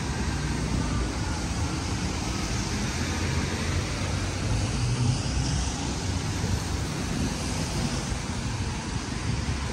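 Steady traffic noise from wet city streets: a constant hiss with an uneven low rumble underneath, and no distinct single events.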